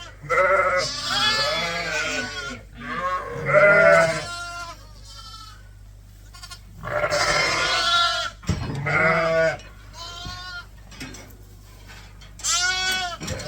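A flock of ewes and lambs bleating, several calling over one another in bursts with short lulls between, over a steady low hum.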